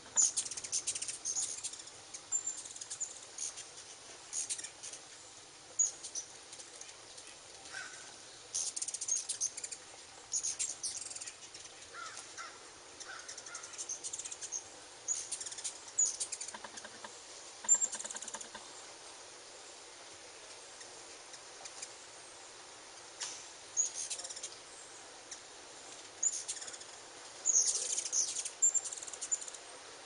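Hummingbirds at a feeder giving high, sharp chittering chip calls in short bursts every few seconds.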